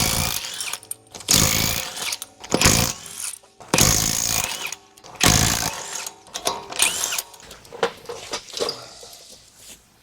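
Impact wrench rattling in a series of short bursts, one after another about a second apart, each with a brief whine of the motor spinning up and down: lug nuts being zipped off a wheel.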